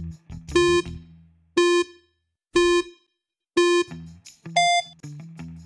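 Quiz countdown-timer sound effect: four short electronic beeps one second apart, then a fifth, higher beep, over quiet background music.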